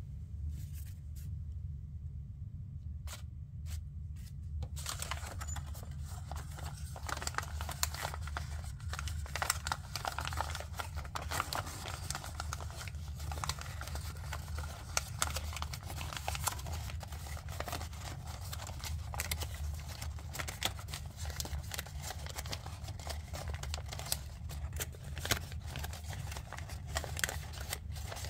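Paper crinkling and rustling as a pleated sheet of origami paper is folded and creased by hand. There are a few separate crackles at first, and from about five seconds in they come almost without a break. A steady low hum runs underneath.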